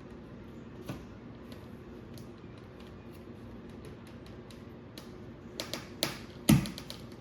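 Plastic clicks and snaps of slot car track pieces and track clips being handled and pressed onto the joints: a few scattered clicks at first, then a quicker run of clicks from about five and a half seconds in, the loudest about six and a half seconds in.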